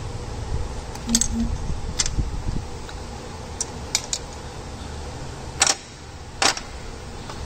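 Scattered sharp clicks and light metallic clinks of small engine-bay parts being handled, about seven in all, the two loudest near the end, over a low steady rumble.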